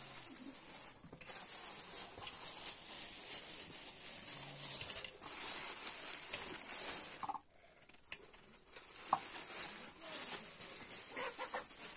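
Food sizzling in a pan over a campfire, a steady hiss with fine crackles. The sizzle drops away suddenly about seven seconds in, then returns.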